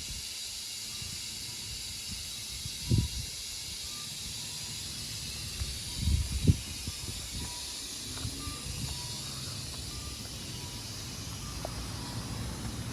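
Steady hissing noise from the faulty mechanism of a karakuri clock, an abnormal noise it gives off all the time while its puppets and carillon do not play. A few low thumps come about three and six seconds in.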